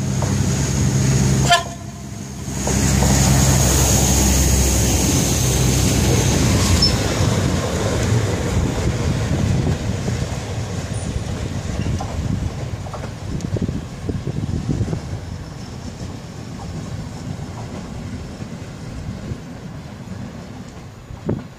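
Yellow PKP Energetyka overhead-line maintenance rail vehicle running under its diesel engine as it shunts past on the track, with a high steady whine. It is loudest a few seconds in, then fades slowly as the vehicle moves away.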